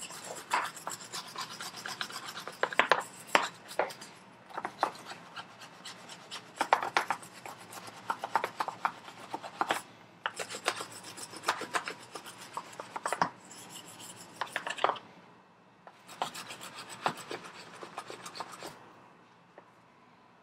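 Steel wire brush scrubbed back and forth over a bicycle saddle's metal rails to scour off surface rust. It makes quick runs of scratchy strokes with short pauses between them, and stops shortly before the end.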